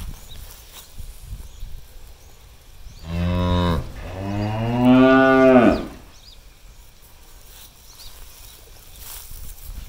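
Cow mooing twice: a short low moo about three seconds in, then straight after it a longer, louder moo that rises slightly in pitch.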